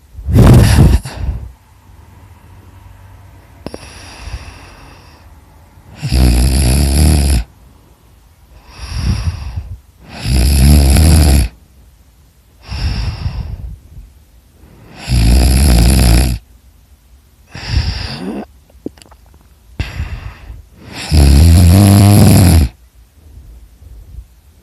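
A person snoring loudly: five rasping snores, each about a second and a half long, come roughly every five seconds, with quieter breaths between them.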